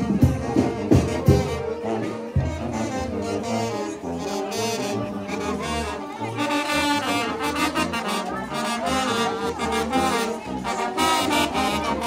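Oaxacan village banda, a wind band of trumpets, trombones and saxophones, playing a dance tune. Heavy drum beats stand out in the first second or so, then the horns carry the melody, growing brighter past the halfway point.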